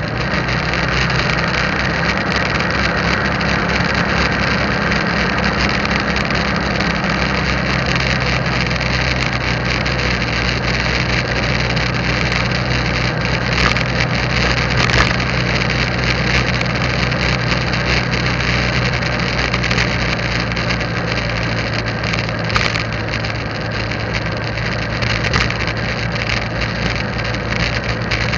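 Motorcycle engine running steadily while riding, over a constant rush of wind and road noise. The engine note shifts in the first few seconds and then holds steady. A few brief knocks come near the middle and later on.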